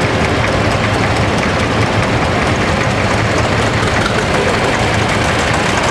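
Old farm tractor engines running steadily as the tractors drive slowly past close by, a continuous rumble with rapid firing pulses.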